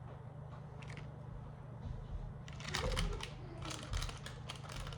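Small items and packaging being handled: faint scattered clicks at first, then a quick run of rustling and clicking from about halfway through.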